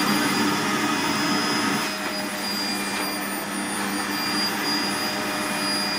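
Vacuum cleaner running steadily, its motor whine holding an even pitch, slightly louder in the first two seconds.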